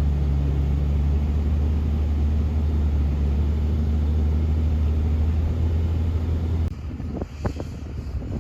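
Steady low drone of a diesel pickup truck driving. About two thirds of the way in it cuts off abruptly to quieter outdoor wind noise with a few brief knocks.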